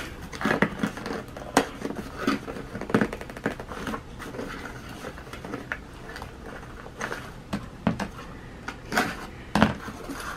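Packaging rustled and handled by hand while unpacking artificial succulent plants, with irregular sharp clicks and knocks.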